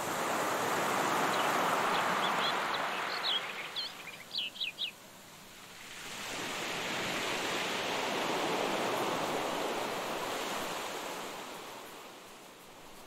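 Ocean surf: two long swells of waves washing in and fading. Around the end of the first swell comes a quick run of short, high bird chirps.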